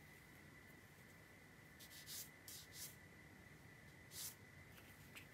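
Near silence broken by a few faint, short strokes of a fine paintbrush on cold-press watercolour paper, around two seconds in and once more near four seconds.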